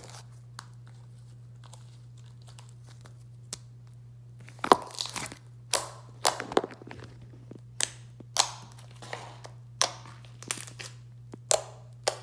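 Blue glitter slime squished and pressed with the fingers for ASMR, giving a run of sharp wet pops and squelches every half second to a second that start after a few quiet seconds. A steady low hum runs underneath.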